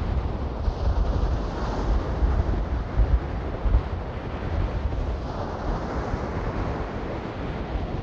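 Wind buffeting the microphone in uneven gusts, over the steady wash of surf breaking on the shore.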